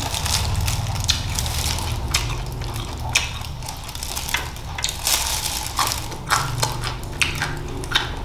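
Close-up chewing of crunchy Thai-style sauced chicken feet and green mango, a string of crisp crunches and clicks.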